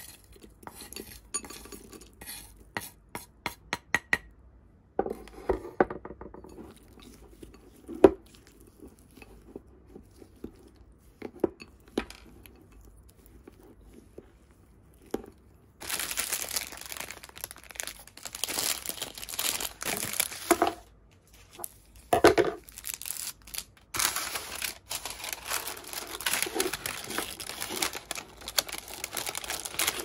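A metal spoon clinks and scrapes in a glass bowl of ice cream. About halfway through this gives way to a long spell of crinkling and rustling as parchment paper is pressed and folded into a baking tin.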